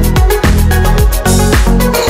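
Electronic dance music with a steady beat and a deep bass line.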